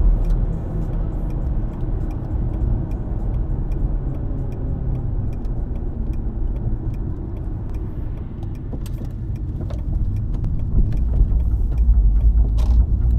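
Car noise: a steady low rumble, growing louder near the end, with faint ticking about twice a second.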